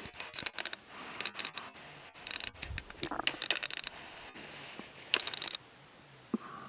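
Handling noise close to the microphone: scratching and scraping with many sharp clicks, coming in irregular spurts, then a low steady hiss for the last second or so.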